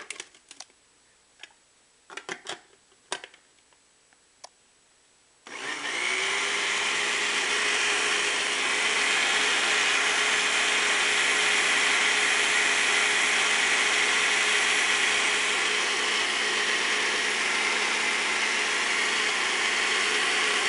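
A few clicks as the blender jar and lid are handled, then about five seconds in the countertop blender's motor starts and runs steadily, blending a strawberry smoothie of strawberries and milk for a little more time.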